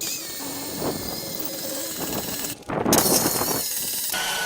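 A power cutting tool cutting through the steel rail of a 1968 Chevy C10 truck frame to take the back end off. It is a steady, hissing cut that stops briefly about two and a half seconds in and then starts again louder.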